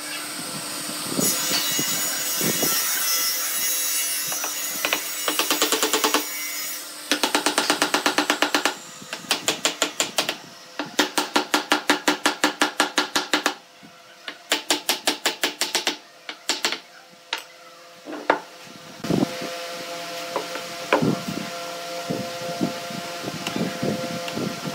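A hammer knocking wooden frame joints together in quick repeated blows, about four a second, with a stretch of rubbing and scraping before. Scattered single knocks and clicks follow near the end as steel pipe clamps are fitted.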